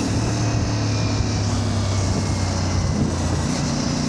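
CF Moto 450 MT motorcycle engine running at a steady speed in traffic, with a steady rush of road and air noise.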